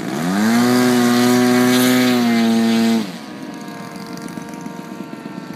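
Radio-controlled model airplane engine passing close. Its pitch climbs over the first half second, holds steady, steps down slightly a little after two seconds, then falls away suddenly about three seconds in, leaving a fainter engine tone.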